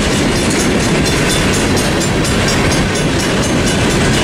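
A mixed freight train's cars rolling across the road crossing, a loud steady rumble of wheels on rail with a regular clickety-clack. The crossing's warning bells ring along with it.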